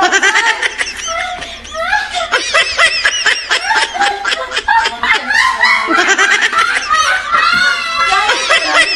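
Women laughing hard in repeated loud bursts of giggles and snickers, with a few words mixed in.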